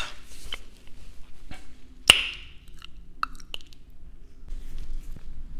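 A few short clicks and lip smacks close to a clip-on microphone, the sharpest about two seconds in, over a faint steady low hum.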